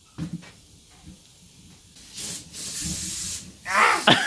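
Aerosol can of flammable spray hissing in two short bursts, about two seconds in and again a moment later, as it is sprayed into a tyre to fill it with vapour for seating the bead with fire. A brief voice-like sound rising and falling near the end.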